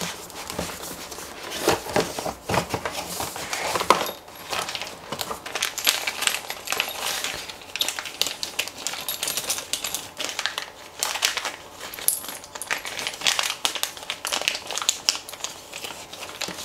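Clear plastic bags crinkling and rustling as they are handled and pulled open, with scrapes and taps from a cardboard box being opened.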